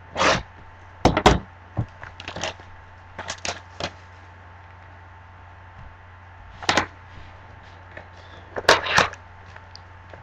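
Cardboard trading-card boxes being handled on a table: a series of short knocks and scrapes in clusters, the loudest about a second in and near the end.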